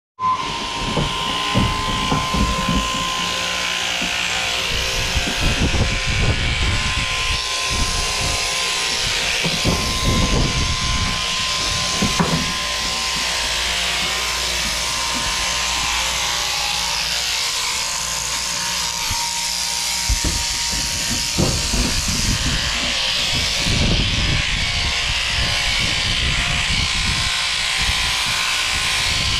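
Portable electric sheep-shearing handpiece running steadily, its comb and cutter clipping through matted wool on a fly-struck lamb, a continuous buzz with a high hiss. Irregular low knocks and bumps come through it.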